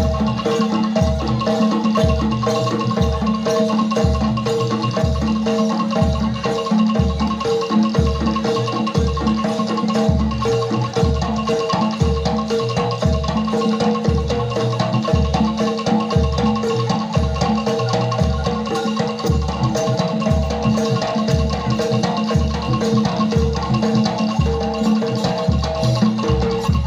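Gamelan-style jaranan accompaniment: struck metal mallet instruments play a repeating melodic pattern over a steady low drum beat of about one and a half beats a second.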